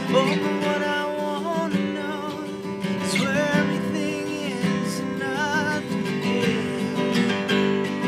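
Background song: strummed acoustic guitar, with a wavering sung melody over it in places.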